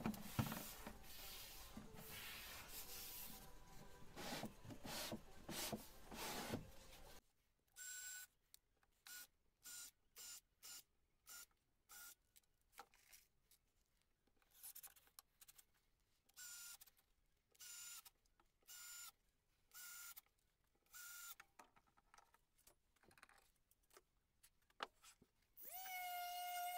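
Faint short runs of a Bosch cordless drill-driver, about one a second, each a brief steady whine, driving screws into a plywood tray after several seconds of faint noise. Music with a held note comes in near the end.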